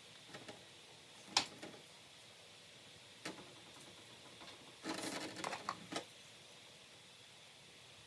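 Light handling noises of engine parts and tools on a workbench: a sharp click, another about two seconds later, then a second of small knocks and clatter.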